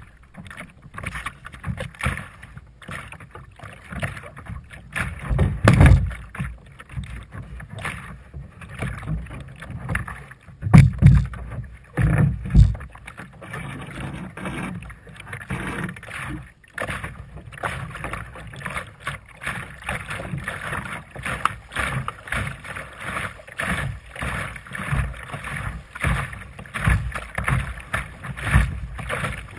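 Water splashing and lapping against the hull of a Sunfish sailing dinghy under way, with wind buffeting the bow-mounted camera's microphone in low rumbling gusts, strongest several times in the first half.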